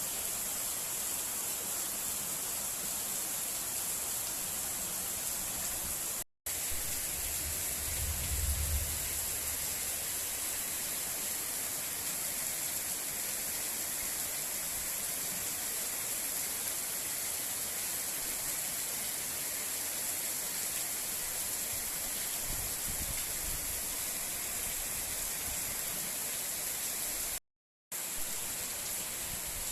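Heavy rain pouring steadily, a dense even hiss, with a brief low rumble about eight seconds in. The sound cuts out for a moment twice.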